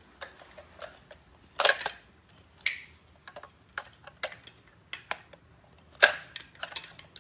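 Plastic Lego Duplo pieces clicking and clacking as a toy truck is handled and pieces are fitted on: a scatter of sharp clicks, louder clatters about two seconds in and again about six seconds in.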